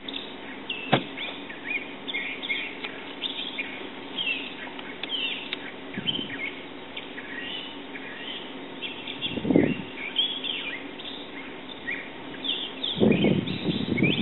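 Small birds chirping in the background, many short quick notes overlapping. There are a few dull low bumps: one about a second in, one past halfway, and a longer one near the end.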